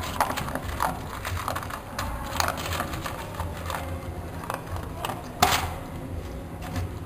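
Irregular light clicks and knocks, with one sharper, louder knock about five and a half seconds in, over a low steady hum.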